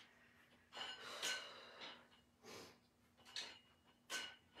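A woman breathing hard from exertion while pressing dumbbells: about four forceful breaths, each a short rush of air.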